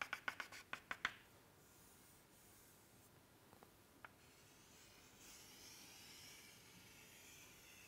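Chalk on a chalkboard: a run of quick taps, about six a second, that stops about a second in. After a couple of faint taps, a soft scratchy hiss follows near the end as the chalk draws a long curved stroke.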